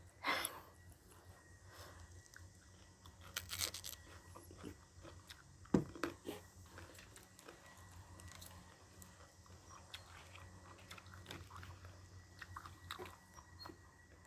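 A person chewing and crunching food close to the microphone, with scattered crisp bites. There is a cluster of crunches about three and a half seconds in and a sharper crunch just before six seconds.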